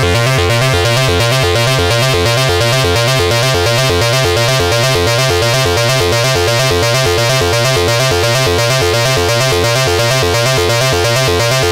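Behringer 2600 analog synthesizer playing a steady, fast-repeating bass sequence of buzzy pulse-wave notes with distortion, for a hypnotic ambient-techno groove.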